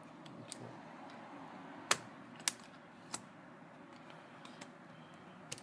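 Sharp plastic clicks from a laptop keyboard being pushed free of its retaining tabs and handled. A few separate clicks, the loudest two about two seconds in.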